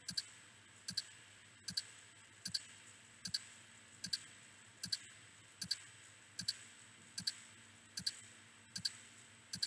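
Computer mouse clicks repeating steadily about every 0.8 seconds, each a quick double tick: the left click is being sent continuously to scroll a web page down.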